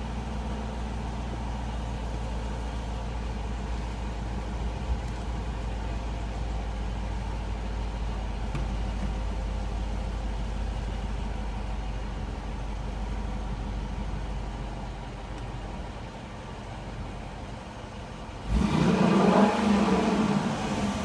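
Dodge Durango R/T's 5.7 L HEMI V8 idling steadily through its exhaust, then revved once sharply near the end, the pitch climbing and falling back within about two seconds.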